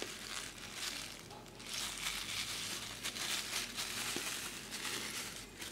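Hands crumpling and kneading a thin white sheet into a ball, a continuous dense crackle of many small crinkles.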